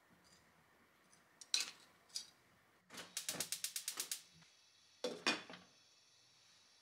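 Metal tongs knocking against a stainless pot twice, then a quick even run of about a dozen clicks over a second from a gas hob's igniter lighting the burner. A glass lid is then set on the stainless pot with a clank about five seconds in.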